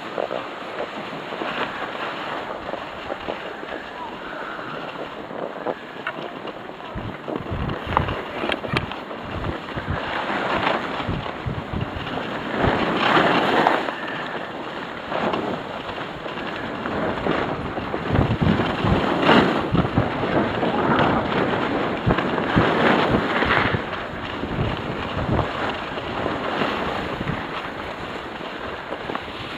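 Wind buffeting the microphone during a downhill ski run, with the hiss and scrape of skis sliding on packed snow. The rushing comes and goes in surges every few seconds.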